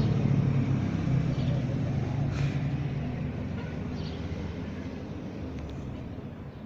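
2019 Suzuki Gixxer SF's single-cylinder engine running through a wide chrome aftermarket exhaust tip, its steady exhaust note growing gradually fainter.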